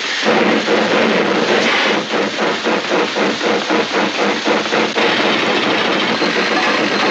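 Rhythmic hissing chug, about three strokes a second, imitating a steam locomotive running: a train sound effect made for an old Disney film.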